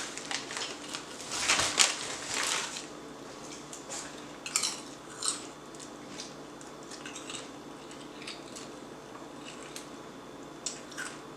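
Scattered clinks, clicks and rustles of dishes and utensils being handled. Most of them come in the first few seconds, with a few more near the middle and only sparse light ticks after that.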